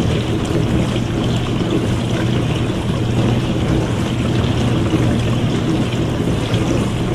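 Dishwasher running its wash cycle: water spraying and sloshing inside the tub over a steady low hum.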